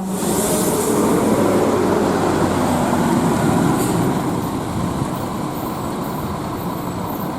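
Intercity coach's diesel engine running as the bus moves past, a steady rumble that comes up just after the start and slowly eases off through the second half.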